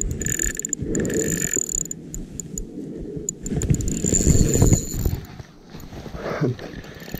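Spinning reel being cranked while a hooked fish pulls against the line: a mechanical whirr with a high whine in the first second or so, then a run of quick clicks.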